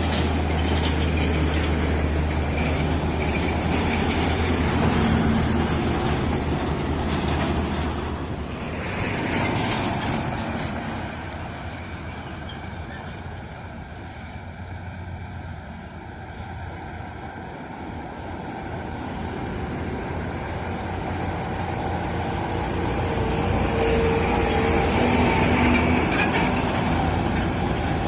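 Heavy truck engines and road traffic. A low engine drone fades out about a third of the way through, then traffic noise grows louder again toward the end.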